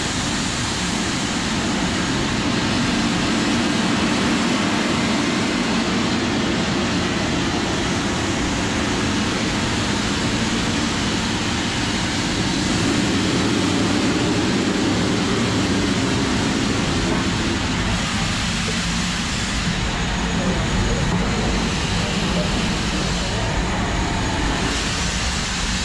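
LMS Black 5 4-6-0 steam locomotive hissing steam close to its wheels and motion, a loud, steady rush. About eighteen seconds in the sound changes, and near the end the hiss comes in gusts every couple of seconds as the engine moves slowly off.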